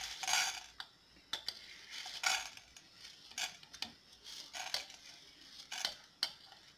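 Light, irregular clinks and taps of a bowl and utensils against a nonstick frying pan as urad dal is tipped in to dry-roast with chana dal, with no oil sizzling.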